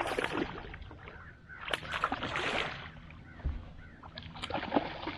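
Water splashing in three short bursts as a hooked smallmouth bass is brought up to the surface beside the boat.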